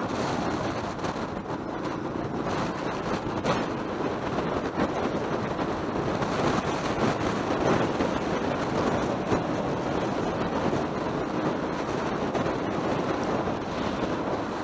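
Wind noise buffeting a camera on a moving motorcycle, over a Yamaha XT600E's single-cylinder engine running at steady road speed.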